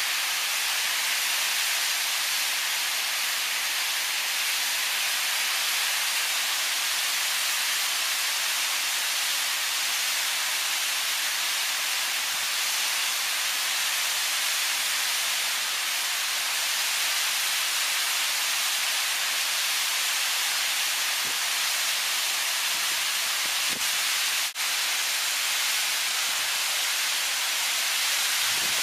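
Waterfall cascading over rock slabs: a steady, close rush of falling water, with a very brief break in the sound about three-quarters of the way through.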